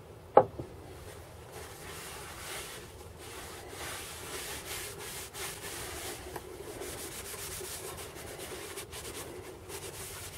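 A rag rubbing Danish oil into an oak box, a steady scratchy wiping with small ticks throughout. A single sharp knock about half a second in is the loudest sound.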